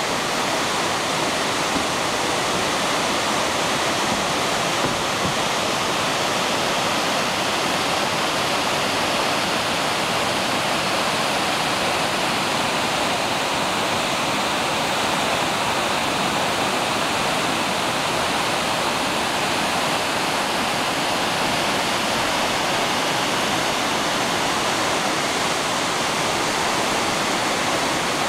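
Water pouring over a concrete dam spillway and the weir below it, a loud, steady rush of falling and churning water.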